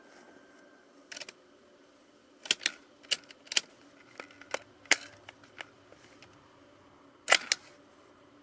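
A series of sharp mechanical clicks and clacks, about a dozen at irregular spacing with a loud double click near the end, from rifle gear being handled.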